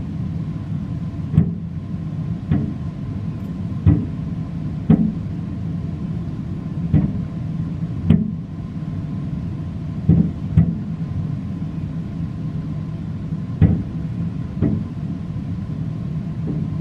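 Aerial firework shells bursting at a distance, about ten sharp bangs at uneven intervals of one to three seconds, over a steady low rumble.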